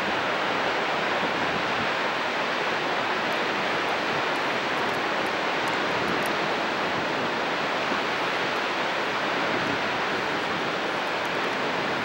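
Dettifoss waterfall: a steady, unbroken rush of heavy water plunging over the cliff and churning in the gorge below.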